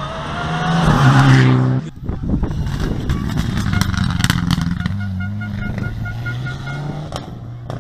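Rally car engine at full throttle as the car approaches, its revs rising to a peak before an abrupt cut about two seconds in. A second run follows: an engine pulling hard up a hairpin, with a string of sharp cracks.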